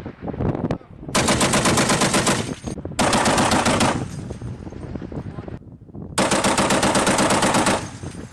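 M2 .50-calibre heavy machine gun firing three bursts of automatic fire, the first and last about a second and a half long and the middle one about a second, each followed by an echoing tail.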